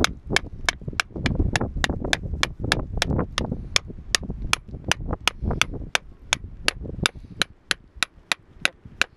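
Hand hammer striking a cold chisel into beach rock: a steady run of sharp metallic taps, about three a second, chiselling out around a fossil. A low rumble runs under the taps and fades out about seven seconds in.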